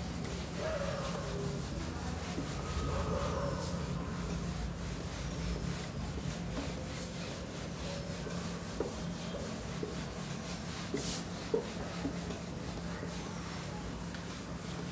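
A felt whiteboard duster rubbing across a whiteboard, over a steady low hum, with a few soft taps in the middle.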